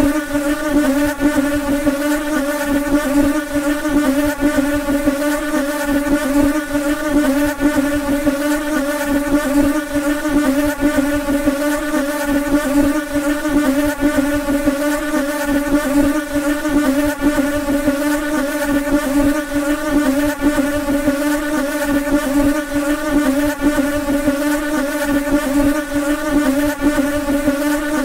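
Fly buzzing: one steady buzz that wavers slightly in pitch.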